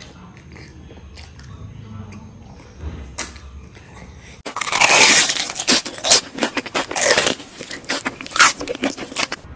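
Close-miked mukbang eating sounds of mutton leg with rice: a few quiet clicks at first, then about halfway in several seconds of loud, dense crunching and chewing.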